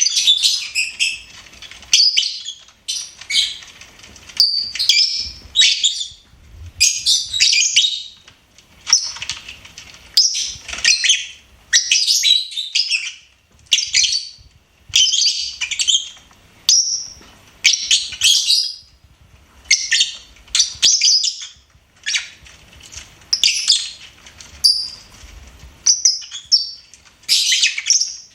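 Lovebirds chirping: high-pitched chirps in short, rapid clusters, about one cluster a second.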